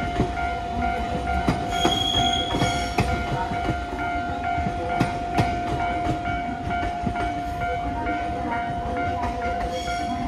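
A JR 383 series electric limited-express train runs past on a far track and pulls away, its wheels clicking irregularly over rail joints, with a steady high tone underneath. A brief higher squeal comes about two seconds in.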